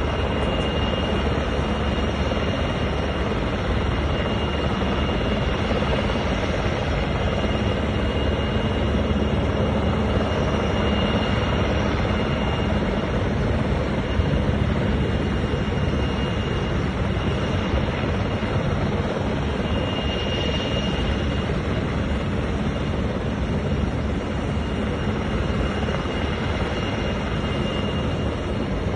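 Rescue helicopter hovering: a steady drone of rotor and engine that holds at one level throughout.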